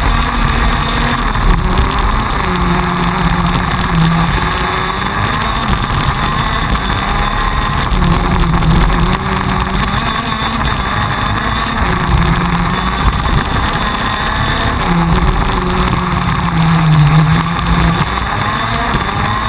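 TM 125 cc two-stroke KZ2 shifter-kart engine at racing revs, its pitch climbing and dropping again and again as the kart laps.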